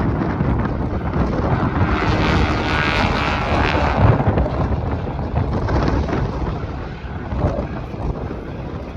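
An aircraft flying past, its engine sound swelling and fading over a few seconds, with wind buffeting the microphone throughout.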